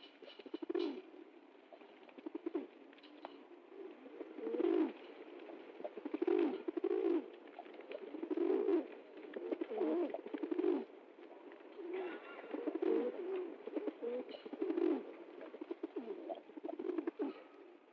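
Pigeons cooing repeatedly, a low coo every second or two.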